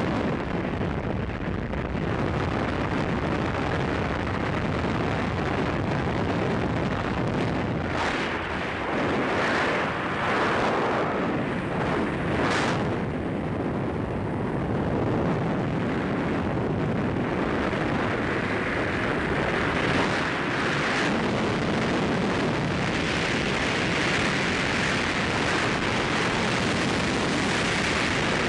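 Loud, steady rush of freefall wind over the microphone of a camera worn by a wingsuit flyer, swelling now and then as the airflow shifts.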